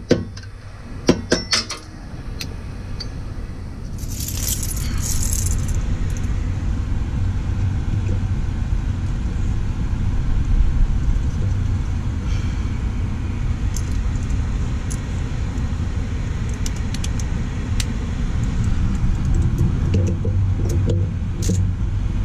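A hammer strikes a screwdriver against a rear brake caliper four times in the first two seconds, followed by jingling and clinking of metal tools and parts. Under it all a steady low rumble builds from about two seconds in and becomes the loudest sound.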